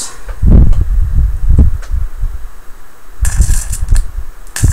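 High-voltage arc drawn from a flyback transformer driven by a ZVS driver to a hand-held ground wire. It starts about three seconds in as a loud hiss with a low rumble under it; a few shorter low rumbles come before it.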